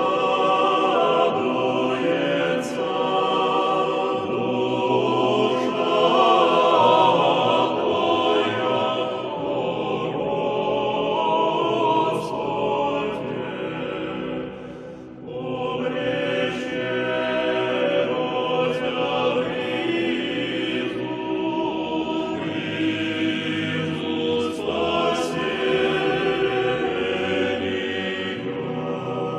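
Choral music: a choir singing long, sustained phrases, with a short break about halfway through.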